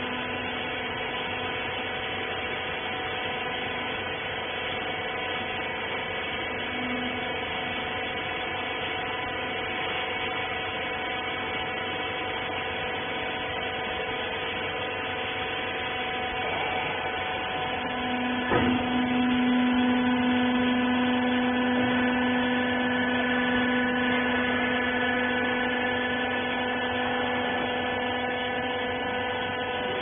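Hydraulic power unit of a horizontal wiper-rag baler running with a steady hum and whine. A knock sounds about two-thirds of the way in, after which a lower hum comes in and grows louder for several seconds, as the press works under load.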